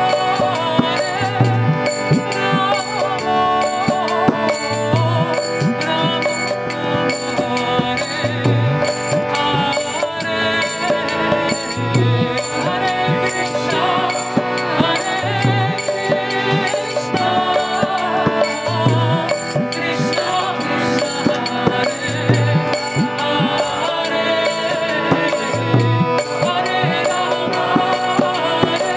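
Kirtan: a woman singing a devotional chant over the sustained reed chords of a harmonium, with karatalas (small brass hand cymbals) clashing in a steady rhythm and a mrdanga drum sounding a deep bass stroke about every three and a half seconds.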